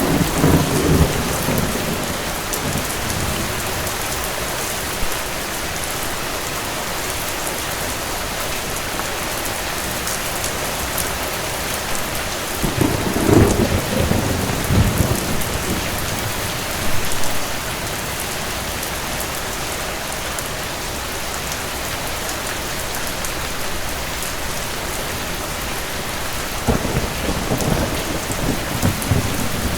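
Steady rain with rolls of thunder rumbling low. One roll fades away just after the start, a longer one comes in the middle, and another comes near the end.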